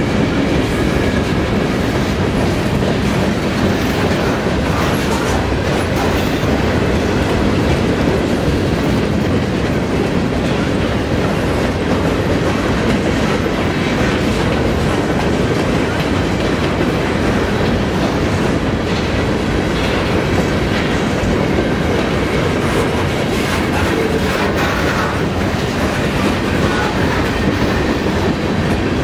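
Freight train cars rolling past close by: steel wheels running on the rails in a steady, unbroken noise.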